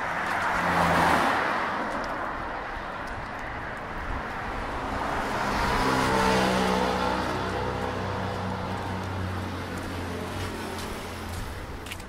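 Cars passing on a city road: one goes by about a second in, and another around six seconds in with its engine hum audible, fading away over the following seconds.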